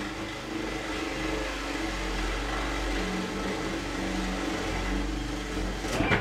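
Cordless drill with a Forstner bit boring a wide hole into wood, running steadily under load. It gets briefly louder near the end and then stops abruptly.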